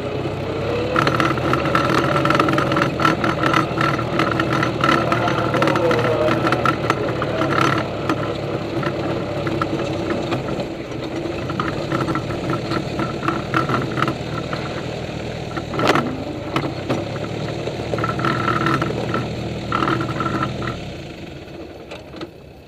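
Allis-Chalmers B tractor's four-cylinder engine running steadily while the tractor drives slowly, heard close up from underneath it, with rattling and clicking from the chassis. There is a single sharp click about two-thirds of the way through, and the sound fades away near the end.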